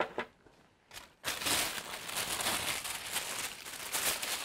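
White tissue paper crinkling as it is lifted and bunched out of a cardboard box: a few soft rustles, then, about a second in, loud continuous crackling.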